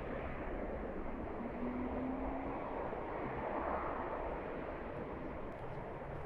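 Wind blowing outdoors, a steady rushing that swells in a gust a few seconds in, with a faint engine hum rising slightly in pitch about two seconds in.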